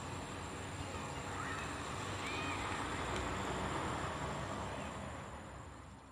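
Steady outdoor background noise with a couple of faint high chirps in the first half, fading out near the end.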